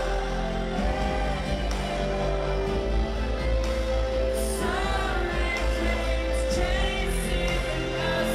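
A rock band playing live through an arena PA, with heavy bass and a voice singing over it.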